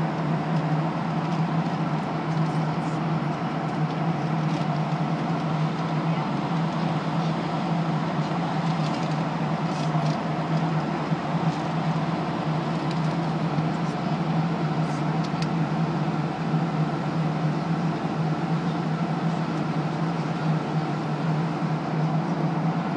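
Steady airliner cabin noise in flight: the even rush of engines and airflow through the fuselage, with a strong low hum that does not change.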